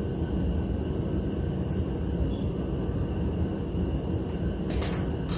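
Epson ET-15000 inkjet printer running while it prints an alignment page: a steady mechanical rumble, with two brief rustles near the end.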